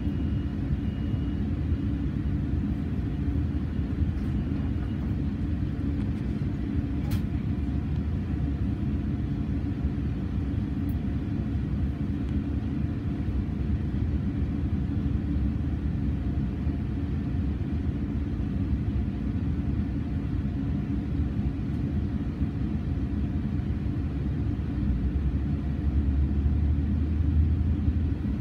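Steady low rumble and hum inside a passenger train coach standing at a station, with a single click about seven seconds in. Near the end the low rumble grows louder as the train begins to pull away.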